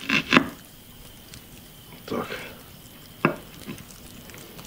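Kitchen knife dicing an onion on a cutting board: a few separate chops, two quick ones at the start and a sharp single one about three seconds in.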